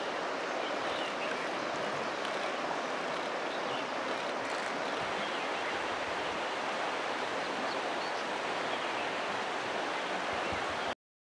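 Steady rushing of flowing river water, an even hiss with no breaks, cutting off suddenly near the end.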